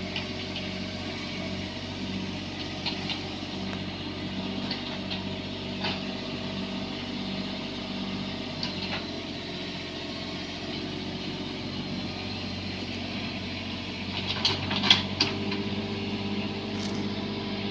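Bobcat 322 mini excavator's diesel engine running steadily, its hum pulsing in the first half, with scattered metallic clanks and knocks from the machine working. A quick cluster of louder clanks comes about fifteen seconds in.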